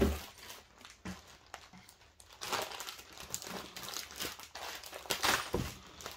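Clear plastic parts bags crinkling and rustling as they are handled, with a few light clicks and taps.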